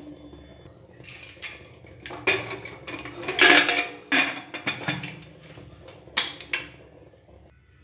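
Aluminium pressure cooker lid being fitted and closed: a string of metal clanks and scrapes, the loudest about halfway through and another sharp clank near six seconds. A steady high cricket chirr runs underneath.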